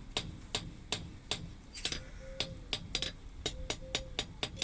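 Hand hammer striking a hot iron bar on an anvil to flatten its end, in a steady rhythm of about three blows a second. A short ringing note sounds between blows in the middle.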